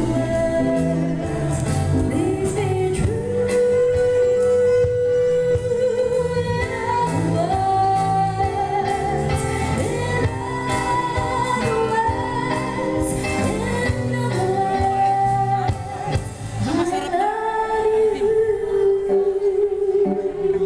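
Live band playing through a PA: a woman singing long held notes over keyboard, guitars and a drum kit. About sixteen seconds in the drums and bass drop back while she holds one long note.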